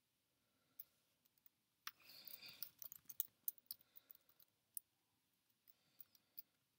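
Faint clicks of a computer keyboard typing a short filename. A single click comes about a second in, and then a quick run of keystrokes that thins out and stops.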